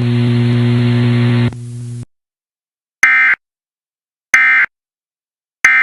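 A steady radio hum and hiss cuts off about two seconds in. Then come three short, harsh Emergency Alert System data bursts, about a second and a third apart: the end-of-message (EOM) tones that close the alert.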